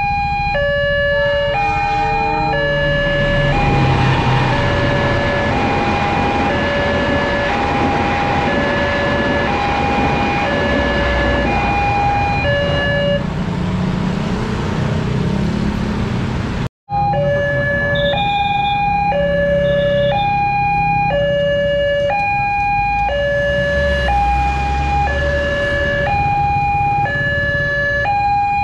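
Railway level-crossing warning alarm sounding a two-tone high–low signal, switching between a higher and a lower tone about every half second. It runs over a rushing traffic noise and the low rumble of motorbike engines, and cuts out for an instant about two-thirds of the way through.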